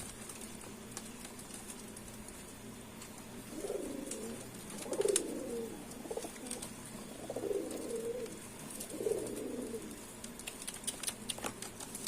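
Domestic pigeons cooing: four low, wavering coos, the first about three and a half seconds in, with a few faint clicks between them.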